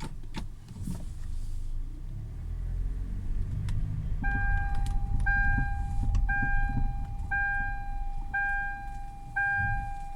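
Low road and drivetrain rumble inside the cabin of a 2013 Hyundai Elantra rolling forward, with a few dull knocks from the running gear. The owner cannot trace them; mechanics have suggested the steering-shaft universal joint or an inner CV joint. About four seconds in, a dashboard warning chime starts beeping about once a second, six times.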